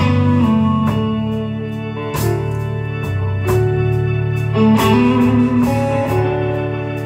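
A live rock band playing an instrumental passage: held keyboard chords over electric guitar, bass and drums, with cymbal hits marking the changes every second or so.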